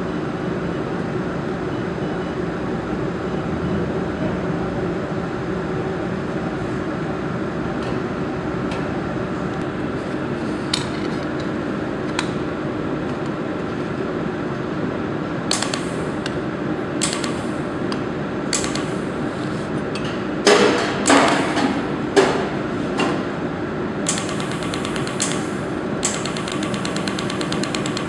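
Handheld YAG laser welding head firing pulses onto a steel joint: a series of sharp snaps, starting about halfway and bunched into a louder, quicker cluster past three quarters of the way, as it tack-welds the seam. Under it the welding machine hums steadily.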